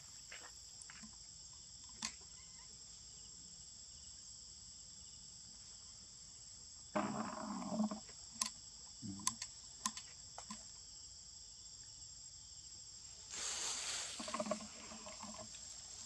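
A steady, high-pitched insect chorus. There are short rustles and knocks about seven seconds in and again near the end.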